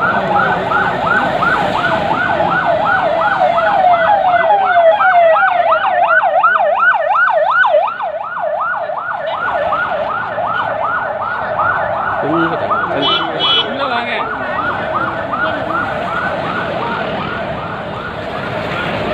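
Emergency sirens on a slow-moving vehicle convoy, yelping in a fast rise-and-fall about four times a second. They are loudest about five seconds in and drop back around eight seconds as the vehicles pass.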